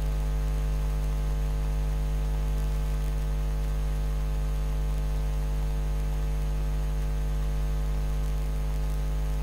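Steady electrical mains hum, a low constant buzz with a ladder of overtones, underlying the recording; no other sound stands out.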